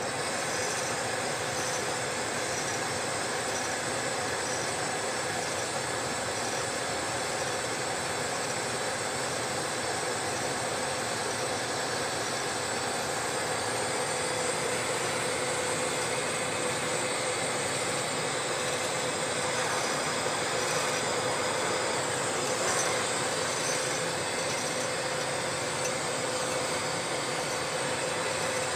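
Glass lathe running with its gas torch flames burning against a spinning glass tube: a steady hiss and hum with a faint steady tone under it.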